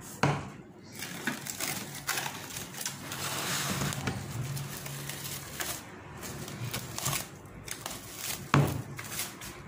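Plastic cling film pulled off its roll and stretched over a bowl, crinkling and crackling, with two sharp knocks, one just after the start and one near the end.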